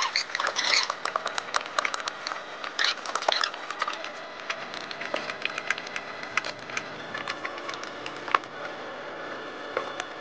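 Chef's knife slicing an onion on a wooden cutting board: a quick run of crisp taps in the first few seconds, then fainter, scattered light clicks.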